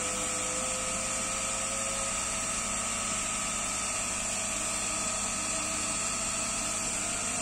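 A CNC 3018 laser engraver running an etching job: a steady mechanical hum with a thin, constant whine, from the laser head's cooling fan and the machine's motors.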